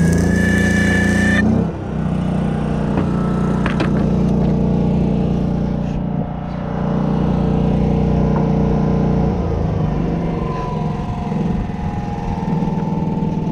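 An engine running steadily at a constant speed, with a high pitched tone over it for about the first second and a half that stops abruptly.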